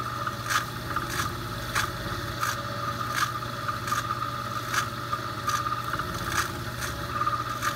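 Small metal lathe running steadily with a pool cue spinning in it. A rubbing scrape repeats about every three-quarters of a second as liquid burnisher is pressed from a small applicator bottle onto the cue's spinning leather tip.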